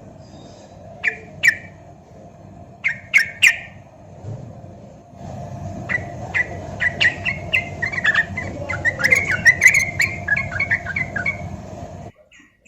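Yellow-vented bulbul (trucukan) singing: a few short separate chirps, then from about six seconds a long rapid run of bubbly notes, over a steady background hiss that cuts off suddenly near the end.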